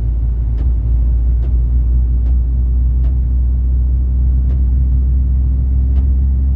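Ford Ranger 3.0 Power Stroke diesel pickup under way, with a loud, deep steady drone coming through the manual gear lever area and faint clicks about once a second. The customer took the noise for a gearbox fault, but its cause lay elsewhere.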